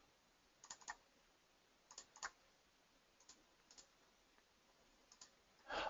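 Near silence with a few faint, scattered clicks at a computer, some in quick pairs, as keys or buttons are pressed.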